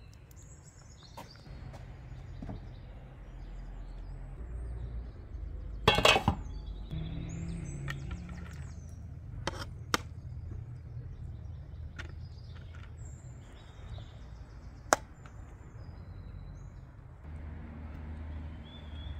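A metal spatula clinking and scraping against a metal cooking pot and a metal serving tray as cooked rice and lamb are dished out, in sharp single clinks, with a louder clatter about six seconds in.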